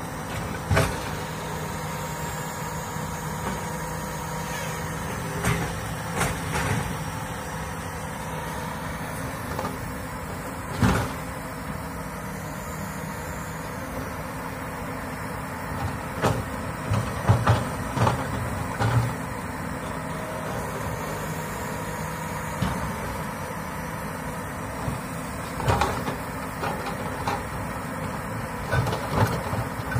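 Komatsu hydraulic excavator's diesel engine running steadily, under scattered sharp clunks and knocks from the working machine, with a cluster of them in the second half.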